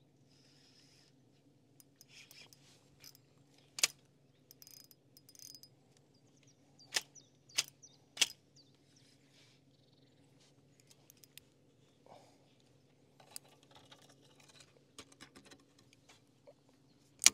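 Fishing tackle handled in a kayak: a few sharp clicks and knocks with scattered light rattling, over a faint steady low hum.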